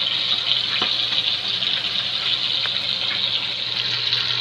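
Whole galunggong (round scad) sizzling steadily as they fry in hot oil, with a few faint pops.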